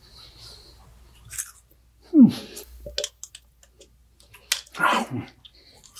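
A man making mouth noises while brushing his teeth: a short falling vocal sound about two seconds in, a few clicks, then a loud noisy burst of breath and spit about five seconds in.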